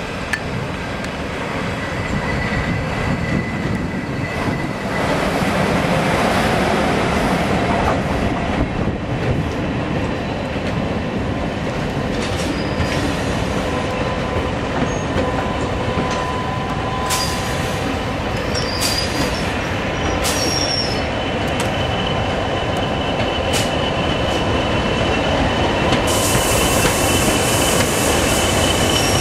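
A train running past along the platform, its steel wheels squealing on the rails and clicking over the rail joints. It gets louder from about five seconds in, and a broad hiss swells near the end.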